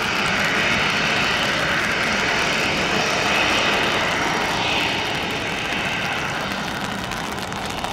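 Boeing 737 jet engines running at taxi power as the airliner taxis and turns on a wet taxiway, a steady rushing noise that is a little louder in the first half. Rain falls steadily underneath.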